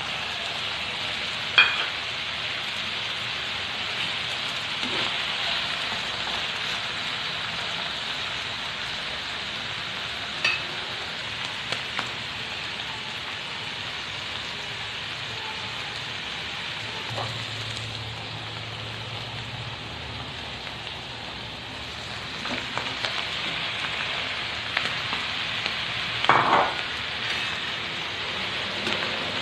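Chicken pieces, carrot slices and baby corn sizzling steadily as they fry in a nonstick pan, with a few sharp knocks of a utensil against the pan and a louder clatter near the end.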